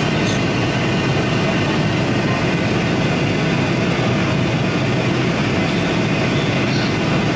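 Steady airliner cabin noise during the flight: an even rush of engine and airflow noise, heaviest in the low range.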